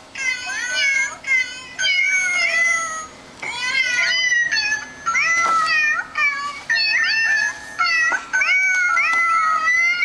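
Musical greeting card's sound chip playing a tune made of recorded cat meows, one pitched meow-note after another in short phrases with brief pauses.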